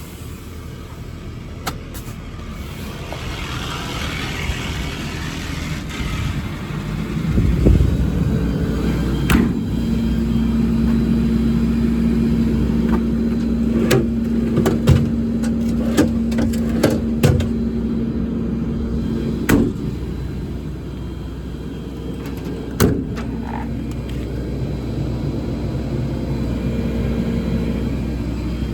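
Ford F550's 6.7-litre diesel engine idling steadily, with a string of sharp clicks and knocks over it. A steady hum comes in about ten seconds in and stops about ten seconds later.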